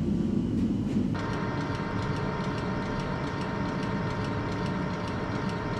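Large workshop machine tool running with a steady hum; about a second in, a higher whine joins it, with faint, evenly spaced ticking over it.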